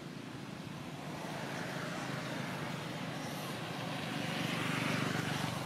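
A motor vehicle passing by: a low steady hum with a hiss that builds, is loudest about five seconds in, then starts to fade.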